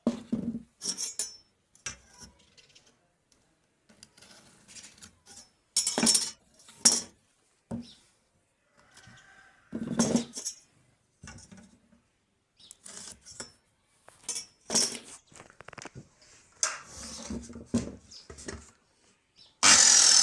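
Scattered clinks, taps and knocks of hard objects being handled and set down, with short pauses between them. A loud, continuous sound starts near the end.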